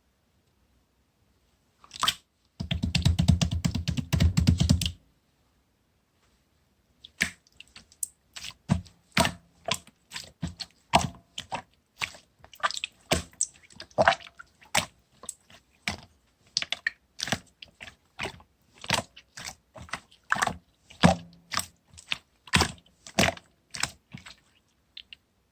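Clear slime being squished and poked by hand, giving sharp sticky clicks and air-bubble pops at about one to two a second. Early on there is a couple of seconds of dense crackling as the slime is pressed and stretched.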